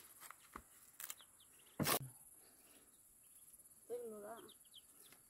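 Ducklings peeping in short, faint high chirps over a steady high insect drone. A sharp knock about two seconds in is the loudest sound, and a brief wavering call comes about four seconds in.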